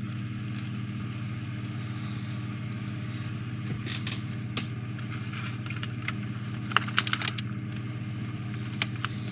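Light clicks and rattles of a foam-board 3D puzzle ship model being lifted and turned in the hands, the sharpest knocks coming about two thirds of the way through. Under it runs a steady low electrical hum.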